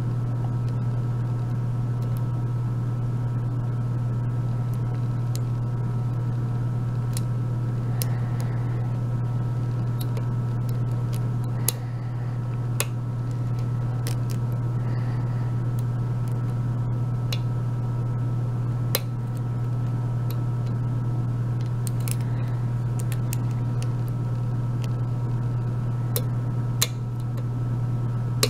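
A steady low hum, with faint, scattered clicks from a steel hook pick working the pin stack of a five-pin Vachette euro cylinder under light tension.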